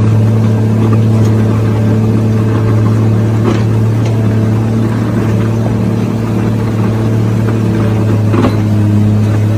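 Excavator's diesel engine running steadily, with a few short scrapes or knocks from the digging a third of the way in and again near the end.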